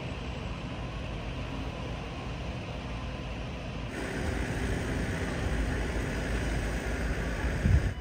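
Steady city street ambience of road traffic. The sound changes abruptly about four seconds in to a slightly louder, brighter traffic noise, with a brief louder low rumble near the end.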